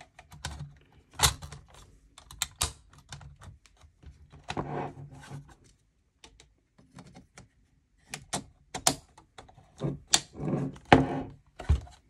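Plastic covers and sheet-metal chassis of a Dell OptiPlex 7010 USFF computer clicking and clacking as the internal covers are fitted back into place: many sharp clicks, with short scraping sounds about five seconds in and again near the end.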